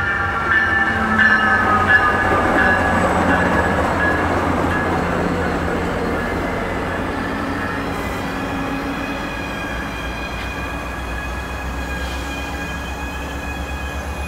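MARC commuter train passing close by. Its diesel locomotive goes past in the first couple of seconds, its engine tones falling in pitch. Then the bi-level coaches roll by with a steady rumble and faint high whining tones.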